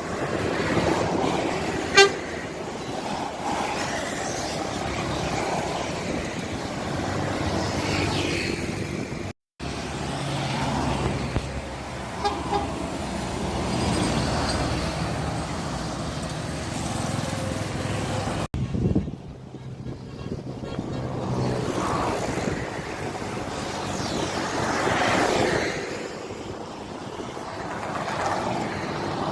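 Road traffic with buses passing and sounding their horns, including a short, loud horn toot about two seconds in. The sound cuts out briefly twice.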